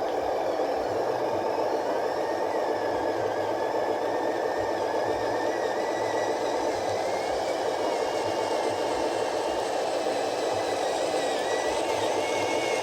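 Remote-control model truck's small electric drive motor and gearbox whirring steadily, with a thin whine that wavers up and down in pitch as the speed changes.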